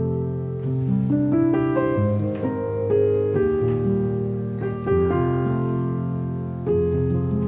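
Background piano music: slow, sustained notes and chords that change about once a second.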